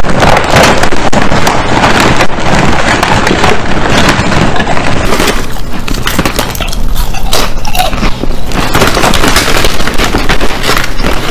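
Very loud, close-miked crunching and chewing of crisp chips, with rapid crackles throughout, as the plastic chip bag crinkles under a hand reaching into it.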